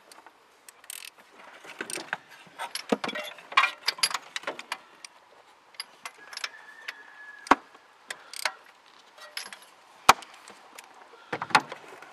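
Metal tools and engine parts clinking and clattering as hands work in a car's engine bay: a run of irregular sharp clicks and clanks, with the engine not running.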